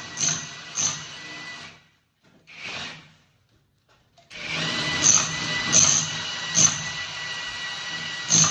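Power drill boring the hole through the wall for an air-conditioner pipe. It starts about four seconds in after a short silence and then runs steadily with a high whine, with a few sharp knocks.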